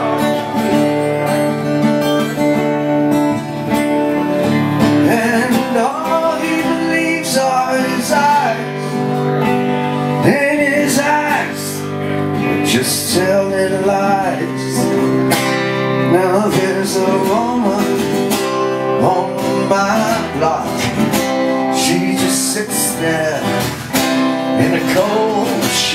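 Live instrumental break with no vocals: an electric guitar plays a lead line with bending notes over strummed guitar chords.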